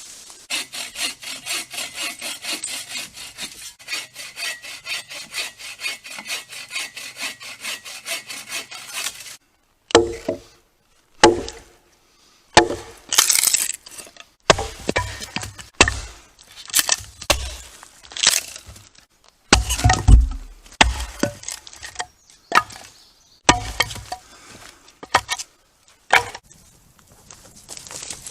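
Wood being sawn by hand, with even back-and-forth strokes of about three a second. It stops suddenly about nine seconds in, followed by irregular sharp cracks and knocks of wood being broken up.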